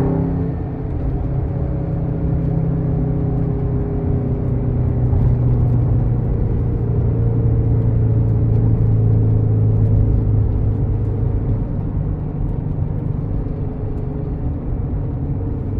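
Subaru FB20D 2.0-litre flat-four running steadily through an unequal-length 4-2-1 header and Borla axle-back exhaust, giving the uneven low boxer rumble; the note swells slightly in the middle and eases a little near the end.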